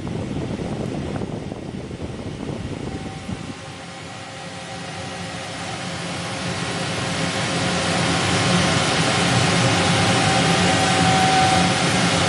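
Emco Turn 220 CNC lathe running. About three and a half seconds in the sound drops and changes, then a steady whine and a hiss build up louder over several seconds and hold.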